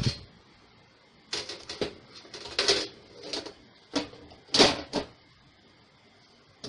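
An irregular run of sharp clicks and clattering knocks from hard parts being handled, about eight in all, with the loudest clatter around the middle.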